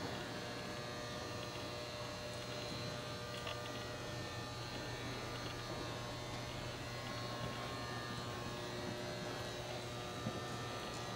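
Steady low hum and buzz with many steady tones, constant throughout, with a few faint soft ticks.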